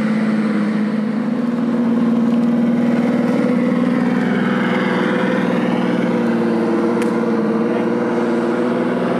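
An engine running steadily with a fast, even pulse, and a higher whine that rises and falls around the middle. There is one sharp click about seven seconds in.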